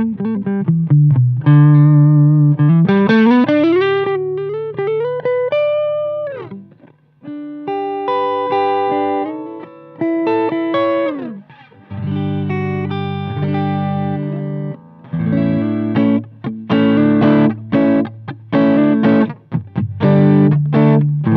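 Electric guitar on its P90 neck pickup, played through an Amp Maker P1800 18-watt Marshall-clone valve amp: single-note lines with slides and bends, then strummed chords from about halfway through.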